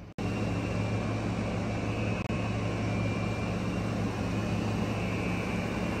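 Window air conditioner running: a steady hum of its fan and compressor, with a faint high whine over it.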